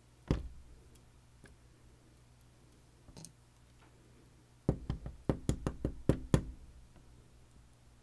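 A disassembled padlock's body knocked against a hard work surface: one knock near the start, then a quick run of about eight knocks in under two seconds.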